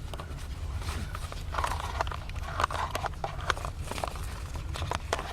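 Scattered knocks, scuffs and clicks of a person crawling through a dirt crawlspace under a house, over a low steady rumble.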